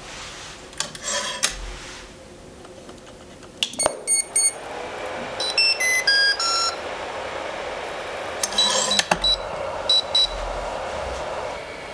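Electronic beep tones from the RC hydraulic excavator's radio gear as it is switched on. There are short high beeps, then a quick run of four falling notes, then a few more beeps, with clicks of handling in between. Near the end a steady whine starts up.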